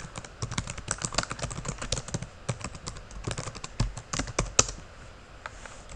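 Typing on a computer keyboard: a quick run of keystroke clicks that thins out to a pause near the end.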